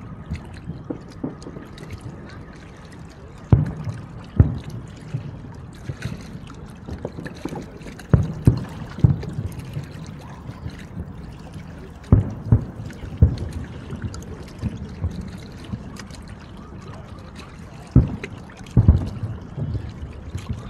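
Aerial firework shells bursting, a string of sharp booms at irregular intervals, some in quick pairs, over a steady low background noise.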